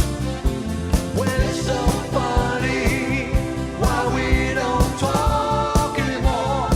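Pop-rock band music with a singer over a steady drum beat.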